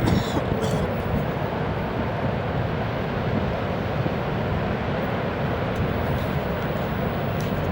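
Large ocean waves breaking, a steady rushing noise, with wind buffeting the microphone.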